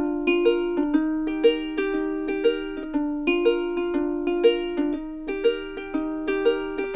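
Background music: a light plucked-string melody, its notes plucked at a steady pace of about two a second.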